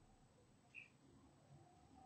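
Near silence with faint outdoor ambience, broken by a single short, high bird chirp a little under a second in.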